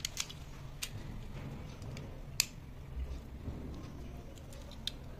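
Small plastic parts of a solar robot kit being handled and pressed together: a few sharp clicks and taps, the loudest a little before halfway.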